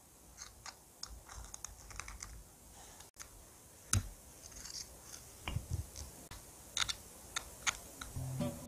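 Knife cutting through a baked chocolate chip muffin: quiet crackles and scrapes as the blade goes through the crust and crumb, with a few sharper clicks, the loudest about four seconds in.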